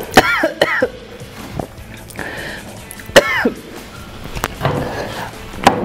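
A man's short, loud cries and coughs, one sliding steeply down in pitch, as he reacts to the burn of extremely spicy fire noodles, over background music.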